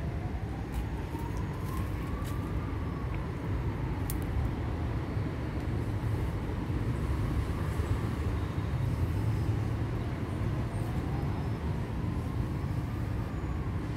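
An emergency-vehicle siren wails slowly up and down, each rise and fall taking about five seconds, over a steady low rumble of road traffic.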